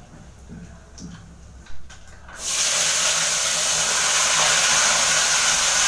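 Chopped pointed gourd tipped into hot oil in an aluminium kadhai: a few light clicks, then a sudden loud, steady sizzle from about two seconds in.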